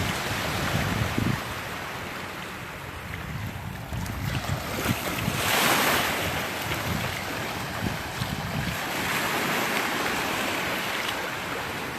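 Gulf of Mexico surf washing up the beach, one wave surging louder about five to six seconds in, with wind buffeting the microphone.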